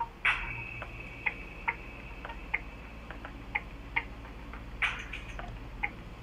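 Light, sharp ticks at about two a second, not perfectly even, with a louder click about a third of a second in and another near five seconds. A faint steady high tone runs through the first few seconds, over a low steady hum.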